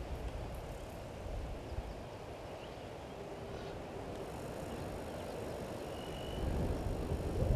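Outdoor ambience dominated by a low wind rumble on the microphone, growing louder and gusty near the end, with a single brief high bird whistle about six seconds in.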